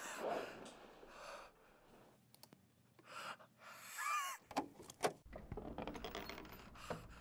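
Breathy gasps and giggling from a dubbed voice, with a high wavering squeal about four seconds in. A few sharp clicks follow, then a stretch of rustling noise.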